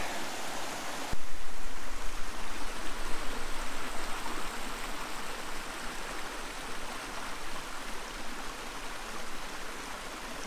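Steady rush of a creek's flowing water, turning abruptly louder and fuller about a second in, then slowly easing.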